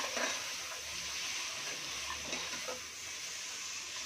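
Onion-tomato masala sizzling in hot oil in a pressure cooker while a spatula stirs it, with a few soft scrapes against the pot.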